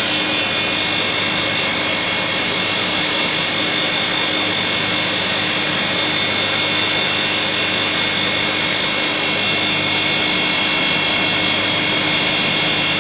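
Small three-phase electric motor running steadily: an even hum with a high whine over it.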